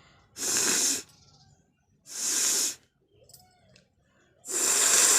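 A person blowing their nose hard, three forceful blasts of air, the last one longer and starting near the end.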